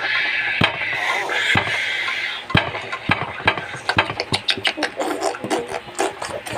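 Coffee-making sounds: a steady hiss with scattered sharp clicks, turning about three seconds in into a fast, irregular clicking rattle.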